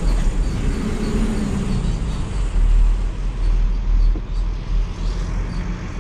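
Nissan Patrol pickup's diesel engine pulling on a hill climb, heard from inside the cab as a steady low drone with road and body noise. The engine note rises and falls briefly about a second in.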